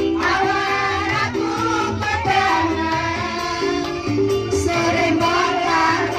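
Music with a singing voice over a steady, repeating bass beat.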